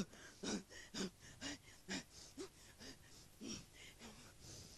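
A performer's voice sobbing in short, breathy gasps, about two a second, growing fainter toward the end.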